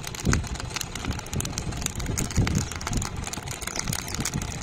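Corn cobs roasting directly on glowing charcoal, with the coals crackling in irregular sharp clicks over uneven low rumbling.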